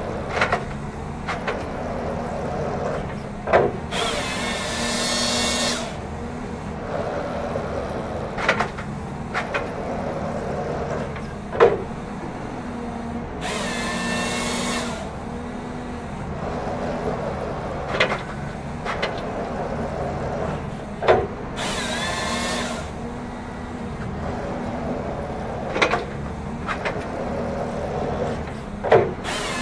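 Cat 538 forestry machine running steadily while its TreeKing processor head cycles hydraulically through its strokes: sharp metallic knocks every few seconds and, about every eight seconds, a high-pitched whine lasting a second or two.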